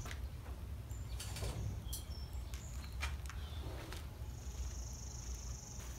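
Faint outdoor ambience: a few short, high bird chirps and scattered light clicks over a low rumble, with a steady high-pitched buzz starting about two-thirds of the way through and lasting nearly two seconds.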